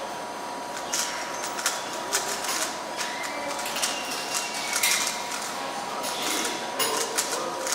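A speedcube being turned fast by hand: a rapid, irregular clatter of plastic clicks, with a faint steady tone behind it.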